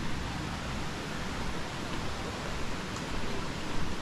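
Steady rushing of a waterfall: water pouring over rock, an even hiss and rumble with no breaks.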